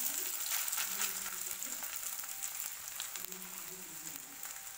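Raw chapli kabab patties sizzling in shallow oil on a hot iron tawa. The second patty has just been laid in, and the sizzle is loudest at the start and eases slightly over the few seconds.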